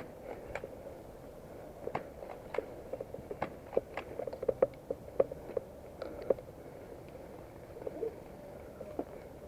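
Footsteps crunching over the ground as a player walks, an irregular run of sharp crunches and clicks, densest in the middle stretch.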